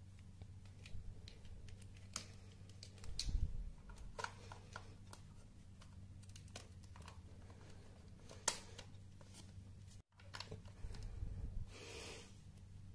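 Plastic LEGO Technic parts clicking and knocking as a LEGO motor is handled and fitted onto a test rig, with scattered sharp clicks and a low steady hum underneath.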